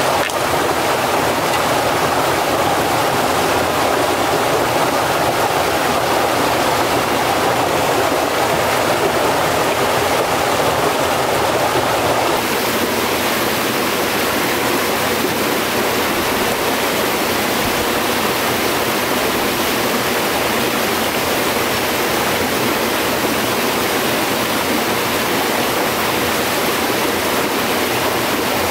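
A stream's water running steadily. About twelve seconds in the sound changes abruptly: the fuller middle drops away and a brighter hiss takes over.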